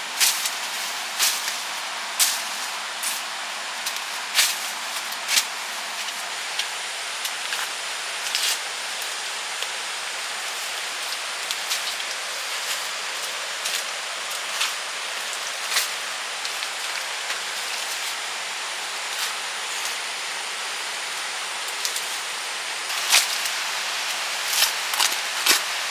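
Steady rain-like hiss with scattered sharp clicks and knocks, most of them in the first few seconds and near the end.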